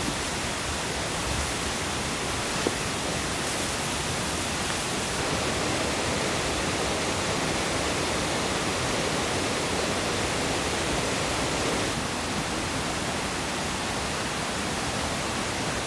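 Steady rain falling on a tent, heard from inside as an even hiss with no let-up.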